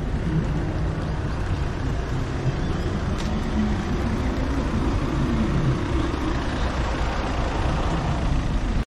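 Street traffic: car engines running and passing close by over a steady outdoor rumble. The sound cuts off abruptly just before the end.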